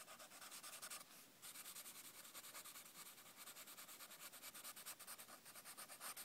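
Marker tip scribbling quickly back and forth on lined notebook paper, colouring in a letter: a fast, even run of faint scratchy strokes with a brief pause about a second in.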